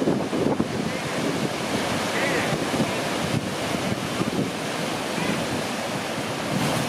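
Ocean surf surging into a narrow rock chasm: a continuous rushing wash of breaking water, with wind buffeting the microphone.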